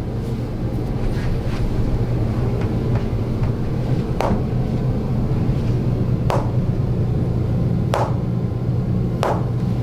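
A steady low mechanical hum from a small motor-driven device, with four sharp knocks from about four seconds in.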